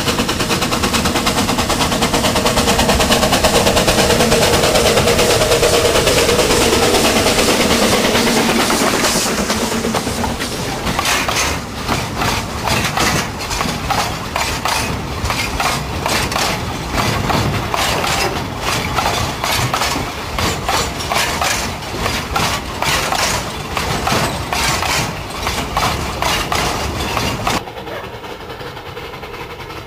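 Steam locomotive passing at close range, working with loud chuffing and the hiss of steam from its cylinders. Then its coal wagons roll by, clattering in a quick, steady run of knocks over the rail joints. Near the end the sound drops abruptly to a quieter background.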